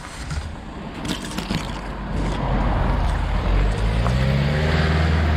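A van's engine drawing close and passing slowly on a narrow lane, getting louder from about halfway through, its engine note shifting in pitch as it goes by.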